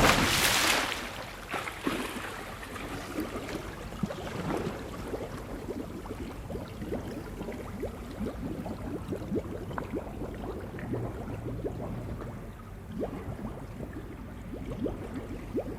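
A splash into water, loudest at the very start, followed by continuous sloshing and bubbling of pool water.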